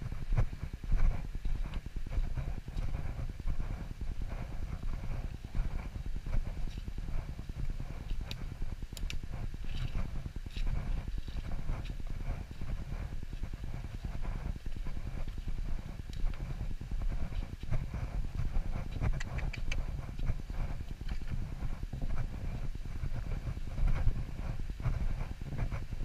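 Footsteps of a person walking up a dirt woodland path and earth steps: a steady tread of about two footfalls a second over a low rumble.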